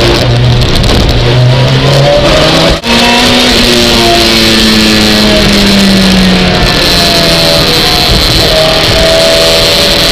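Race car engine heard from inside the cockpit, over a loud wash of rain spray and road noise. The engine note cuts out for an instant about three seconds in, comes back higher and falls slowly, then rises again near the end.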